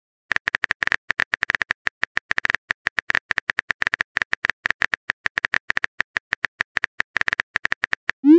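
Simulated phone-keyboard typing clicks from a texting app: a rapid run of short clicks, about ten a second with brief pauses, one per letter typed, ending in a short rising tone.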